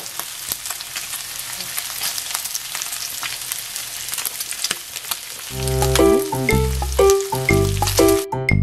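Sliced pork belly sizzling in a frying pan, a steady hiss with frequent small pops. About five seconds in, music starts over it, and near the end the sizzle cuts off, leaving only the music.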